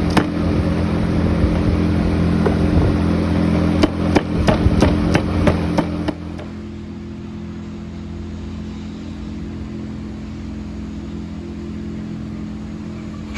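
An engine running steadily, with a cluster of sharp knocks about four to six seconds in. About six seconds in the sound cuts abruptly to a quieter, steady engine hum.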